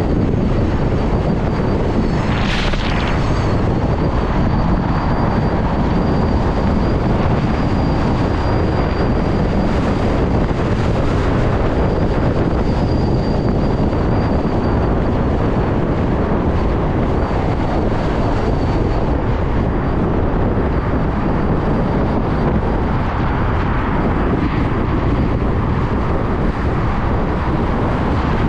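Heavy wind noise on the microphone and road rush while riding an electric motorcycle, with a faint thin high whine that fades out about two-thirds of the way through. A brief high hiss sounds about two and a half seconds in.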